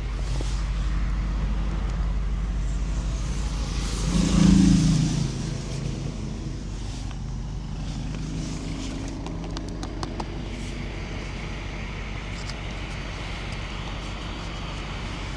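Mercedes-AMG SL55's 4.0-litre twin-turbo V8 running with a steady low drone, swelling briefly louder for about a second about four seconds in.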